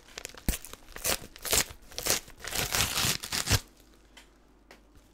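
Brown paper mailer being torn open by hand: several quick tearing and crinkling rips of paper over about three seconds.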